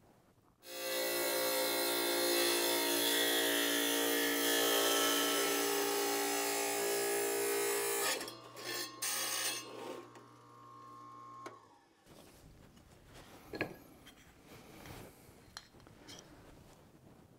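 Benchtop power saw running and cutting through a thin brick slice. It starts about a second in and runs steadily for about seven seconds, then breaks up and stops. A quieter stretch of faint knocks follows as brick pieces are set in thin-set mortar.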